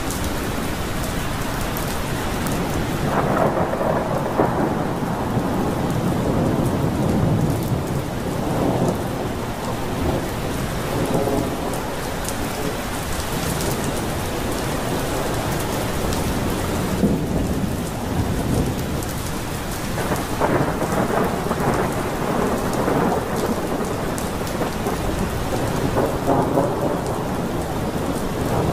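Heavy, steady downpour with rolling thunder that swells and fades in several long rumbles.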